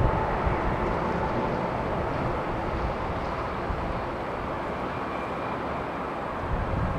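Boeing 777-200ER's twin jet engines at takeoff thrust, a broad rumbling roar heard from behind as the airliner climbs away, slowly fading.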